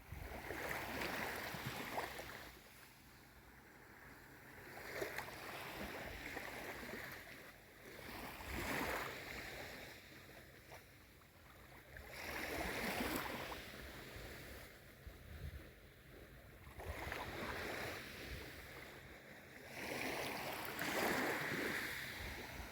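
Small waves of a calm sea washing in, a rush of water that swells and fades about every four seconds.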